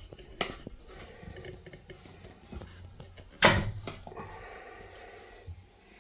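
Knocks and rubbing from parts of a bathroom ventilation fan being handled during cleaning: a sharp knock about half a second in, a louder knock about three and a half seconds in, with scraping and rubbing between and after.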